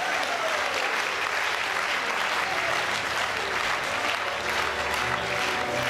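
Audience applauding, with music fading in underneath about four seconds in.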